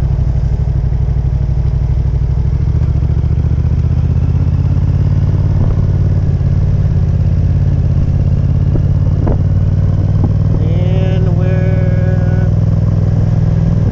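Motorcycle engine running at a steady low speed while riding, heard from the rider's position, with no revving. About ten seconds in, a short pitched tone is heard over it for about two seconds.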